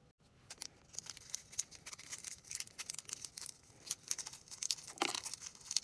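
Thin plastic wrapper crinkling and tearing as it is peeled by hand off a small plastic toy piece: a quick, uneven run of crackles that starts about half a second in.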